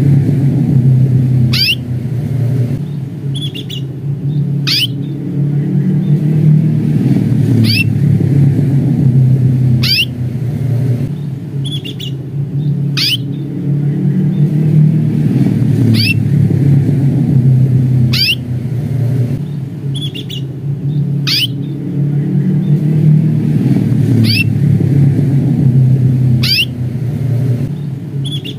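Domestic canary giving a short, high 'cuit' call note that sweeps downward, repeated every two to three seconds with fainter chirps between. A loud, steady low rumble runs underneath.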